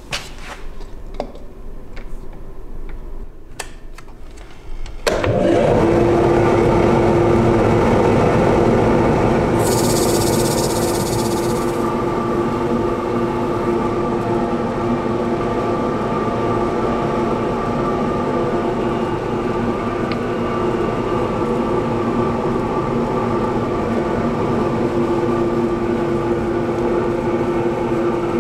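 A few light clicks as the bowl is fitted into the chuck, then about five seconds in a JET wood lathe starts up and runs with a steady hum. Sandpaper is held against the spinning sapele bowl's base, with a brief burst of hiss about ten seconds in.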